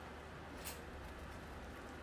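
Quiet room tone with a steady low hum and one short, sharp click a little under a second in.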